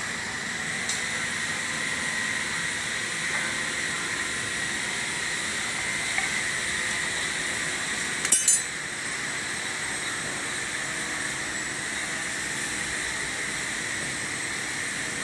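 Steady hiss of workshop background, broken about eight seconds in by a quick cluster of sharp metallic clinks from handling tools or metal parts.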